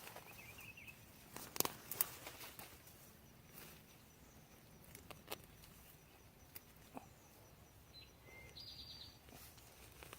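Scattered knocks and rustles from digging in garden soil, loudest as two sharp knocks about a second and a half and two seconds in. A bird chirps briefly near the start and again near the end.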